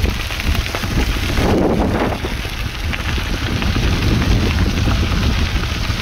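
Wind buffeting the microphone of a camera riding on a moving bicycle: a steady low rumble with a crackling hiss over it.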